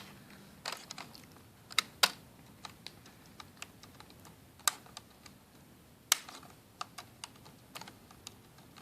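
Scattered, irregular light plastic clicks and taps as the ribbon cables are pulled from their flip-up connector latches on a laptop's mainboard, the loudest about two seconds in and again about six seconds in.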